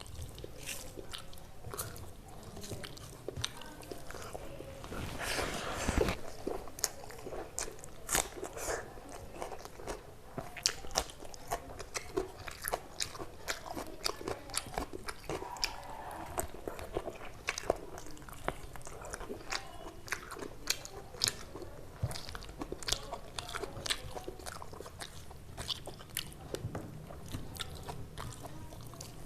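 A person chewing and biting food close to the microphone, with many irregular crisp crunches and wet mouth sounds.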